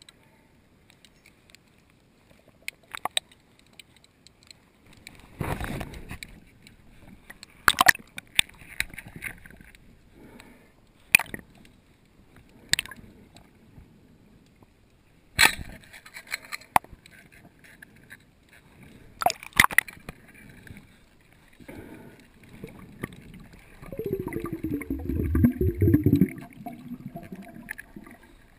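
Underwater sound: scattered sharp clicks and knocks at irregular intervals over a faint steady hiss, with a couple of seconds of low gurgling near the end.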